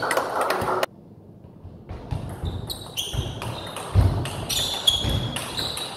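Table tennis rally: the ball clicks off bats and table in quick succession, mixed with short high squeaks of shoes on the court floor and heavy thuds of footwork. Just before it, a burst of hall noise cuts off abruptly just under a second in.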